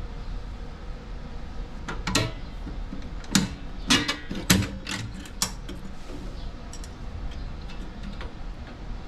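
Metallic clicks and clanks from a car's drum brake assembly as brake spring pliers are worked on the shoe return springs. A burst of sharp snaps and clinks comes between about two and five and a half seconds in.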